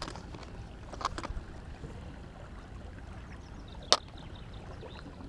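Quiet, steady rumble of river water around a small boat, with a few light clicks of fishing tackle being handled while a sinker is changed; the sharpest click comes about four seconds in.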